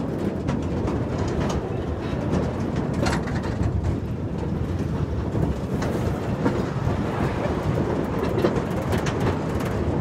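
Riding in a spinning Tilt-A-Whirl car: a steady rumble and rattle of the ride in motion, with a busy patter of small clicks and clatters.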